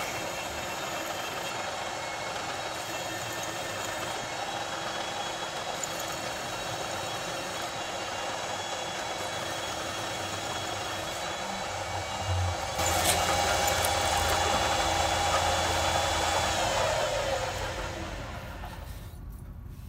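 A drill press runs at about 1000–1200 RPM, its twist drill cutting through thick steel plate. It gets louder about twelve seconds in, then the machine is switched off and spins down near the end.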